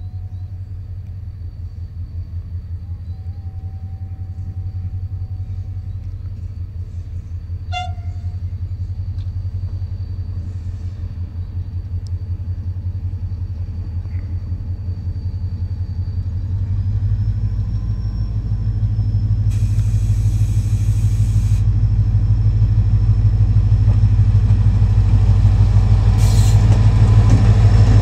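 Diesel locomotive engine running with a steady low throb, getting louder from about halfway through as the train pulls out of the station. A short hiss comes about twenty seconds in.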